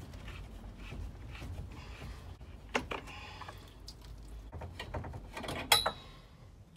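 Irregular knocks, clicks and rustling from hands working among copper heating pipes and loft insulation, with a sharper knock about three seconds in and the loudest one just before the end.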